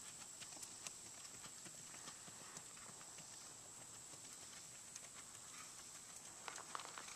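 Faint hoofbeats of a shod Racking horse moving at the rack, a fast, even run of light strikes on turf, a few of them sharper near the end. A steady high hiss lies under them.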